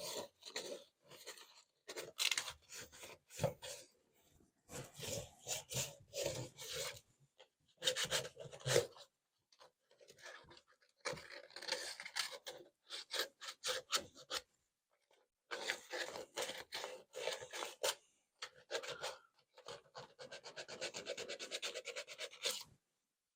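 Rasping hand-tool strokes on a freshly cut central vacuum pipe, in quick back-and-forth bursts with short pauses between them.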